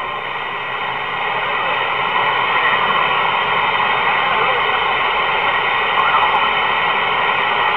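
CB radio receiver hissing with steady static between transmissions, with faint, garbled voices now and then under the noise.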